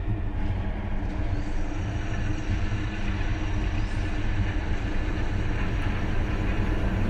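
Low, steady rumble of a heavy vehicle, growing slowly louder.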